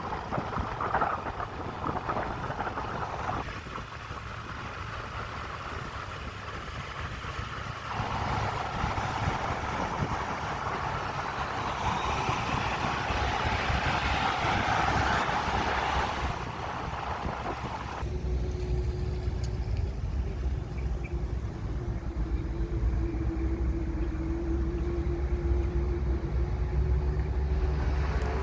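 Heavy road-construction machinery at work: diesel engines running with a noisy scraping, rumbling sound, broken into several spliced clips that change abruptly. In the last stretch, from about two-thirds of the way in, there is a steady low engine drone with a whining tone.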